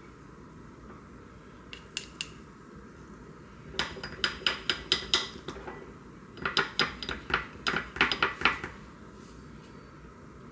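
Metal chopsticks and a wooden spoon clinking against a small glass bowl while stirring a thick honey-and-oil dressing. A couple of light taps come about two seconds in, then two runs of quick clinks, about five a second: one a few seconds in and one past the middle.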